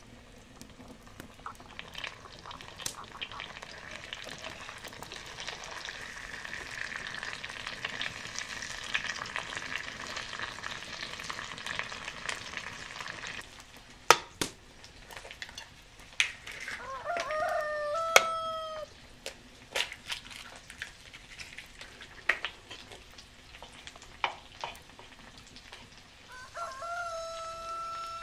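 Potato slices frying in butter in a cast-iron pan, a steady sizzle that cuts off about halfway through. After that come a couple of sharp knocks on a clay bowl and a chicken calling twice, once in the middle and once near the end.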